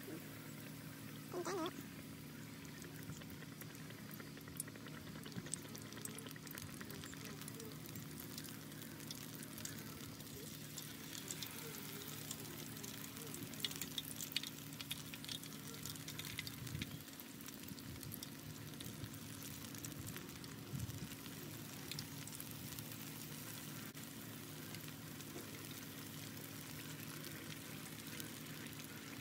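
Batter-coated banana pieces deep-frying in hot oil in a pan: a steady crackling sizzle with scattered small pops, over a steady low hum.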